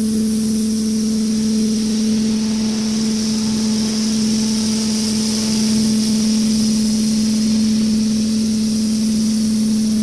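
Pressure washer running steadily for concrete cleaning: an engine-driven unit holding one even hum, with a steady hiss of high-pressure water spray above it.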